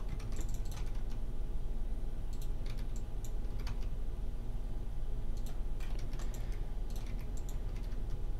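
Computer keyboard keys being pressed in short, scattered clusters of clicks. Under them runs a steady low electrical hum.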